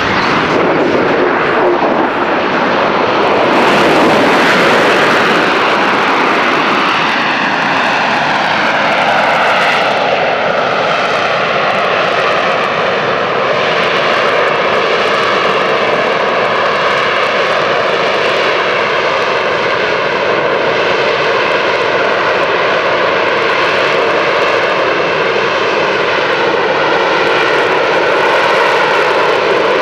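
McDonnell Douglas AV-8B Harrier II's Rolls-Royce Pegasus turbofan running loud and steady. The roar's whooshing tone slides slowly downward over several seconds and then holds.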